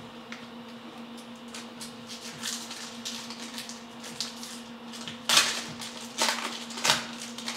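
Topps Chrome football trading cards being handled and slid against one another: a run of short rustles and swishes, with three louder swipes about five to seven seconds in. A steady low hum runs underneath.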